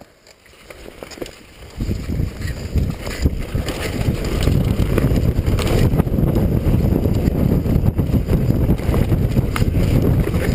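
Mountain bike riding fast down a rough dirt trail, heard from a chest-mounted action camera: wind buffeting the microphone over tyre noise and a steady clatter of knocks from the bike over bumps. It starts quiet and builds over the first two seconds as the bike picks up speed.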